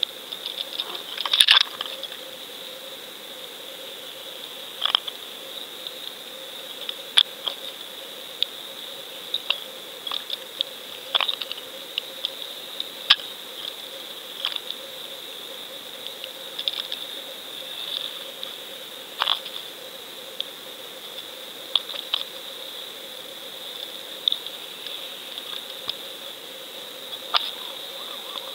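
Underwater sound through a GoFish Cam in its waterproof housing: a steady high hiss with a faint hum, broken by sharp clicks at irregular intervals a few seconds apart. The loudest is a short cluster of clicks about a second and a half in.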